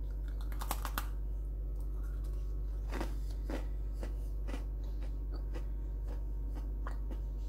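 A Double Stuf Oreo being bitten and chewed: scattered short clicks a few times over several seconds, over a steady low electrical hum.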